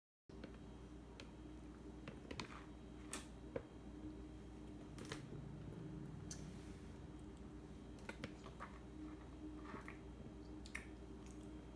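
Light, scattered clicks and taps of a toddler's hands and a fork on a plastic plate on a high-chair tray, over a steady low room hum; the sound starts a moment in, after a short spell of dead silence.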